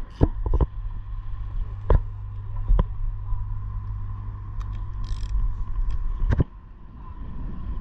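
Ratchet socket wrench worked on the bolts of a clamp on a stranded high-voltage jumper conductor, giving a few separate sharp metal clicks. A steady low mechanical drone runs underneath and cuts out about six seconds in.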